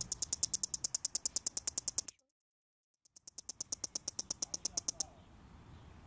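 Headless cicada still clicking in a fast, even pulse train, about a dozen clicks a second, which the uploader puts down to its nerves alone. The clicking cuts off abruptly about two seconds in, resumes after a second's gap for about two seconds more, then stops, leaving a faint hiss.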